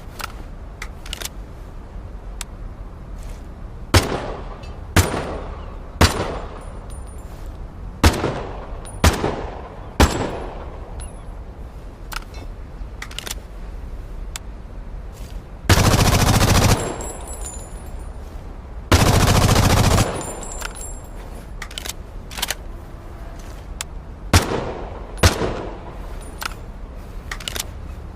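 F1 assault rifle firing: single shots about a second apart, then two fully automatic bursts of about a second each, then a few more single shots.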